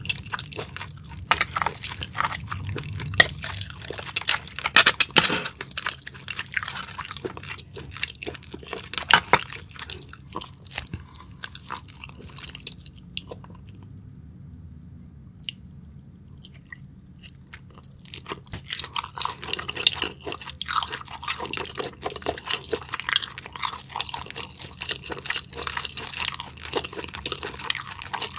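A person chewing spicy-sauced clams: wet clicks and crackles, thinning out to a few faint sounds about halfway through, then coming thick again.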